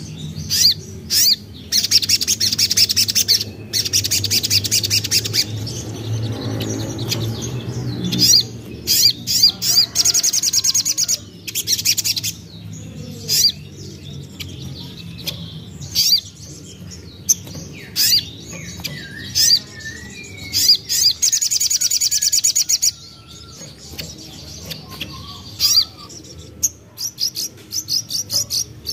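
Sogok ontong (sogon) spiderhunter singing: bursts of fast, high-pitched chattering trills broken up by sharp single chips. There are three long trill runs, about a second in, near ten seconds, and near twenty-two seconds. A low hum runs under the first third.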